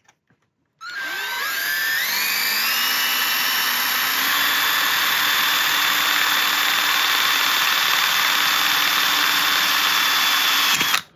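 Power drill with a small bit drilling a hole in the screen door crossbar: the motor whine starts about a second in, climbs in pitch as it spins up, holds steady, then stops suddenly near the end.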